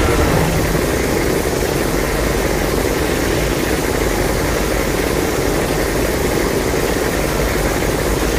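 Steady rumbling noise from a Godzilla (2014-2020 Legendary films) sound effect, holding at one level with no clear pitch or rhythm.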